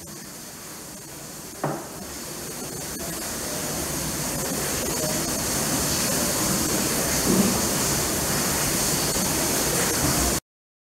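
Steady rushing water hiss that grows louder over the first few seconds, with a single sharp knock about two seconds in.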